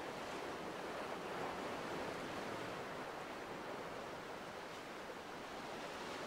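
Steady wash of sea waves on a rocky shore, swelling slightly and easing back.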